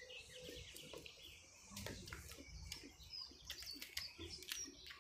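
Faint bird chirps, a few short high calls in the second half, over scattered soft clicks.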